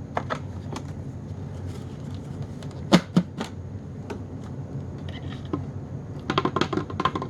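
Clicks and knocks from the plastic dust bin of a Dirt Devil Featherlite vacuum being handled to collect shredded carpet fibres. Two sharp knocks come about three seconds in, and a quick run of rattling taps comes near the end.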